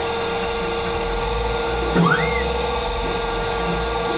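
TruTech CNC centerless profile grinder running, its grinding wheel spindle giving a steady whine, while an axis is jogged and a low hum joins about half a second in. A brief rising chirp sounds about two seconds in.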